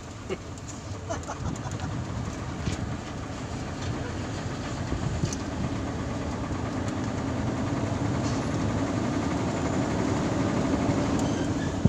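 Truck engine and road noise heard from inside the cab as the truck comes out of a turn and picks up speed on a straight road. It is a steady rumble that grows gradually louder.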